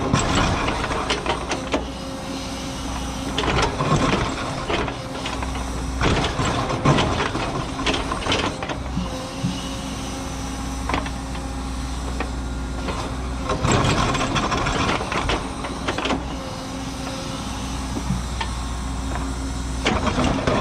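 Cat 314E excavator's four-cylinder diesel running steadily under load while its ripper tooth tears through hard blue stone, with clusters of cracking and scraping every few seconds as the rock breaks.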